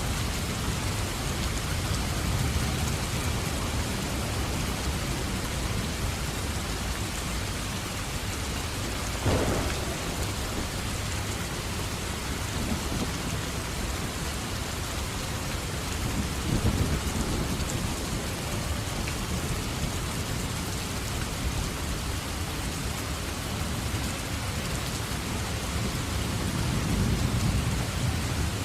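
Steady heavy rain falling, with a sharp thunder crack about nine seconds in and low rolls of thunder rumbling midway and again near the end.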